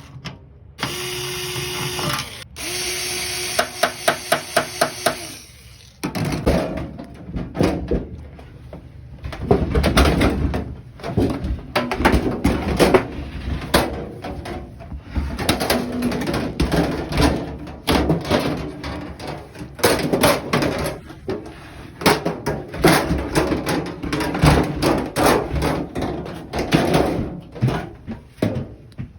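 Power drill-driver running in two short bursts with a steady whine, its clutch clicking rapidly in the second burst. This is followed by a long stretch of knocking, clattering and rattling of metal parts as the microwave is taken apart.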